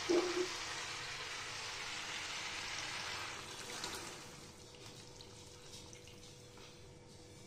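Water poured from a jug into a hot kadai of spiced chicken and potatoes for chicken curry: a steady pouring hiss for about four seconds that then stops, opened by a brief metallic clink of the spatula against the pan.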